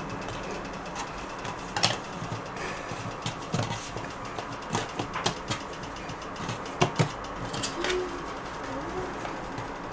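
A plastic bench scraper cutting through soft yeast dough and knocking against a stone countertop: a series of irregular sharp clicks and taps as the dough is divided and pulled apart by hand. A short low hooting tone sounds twice near the end.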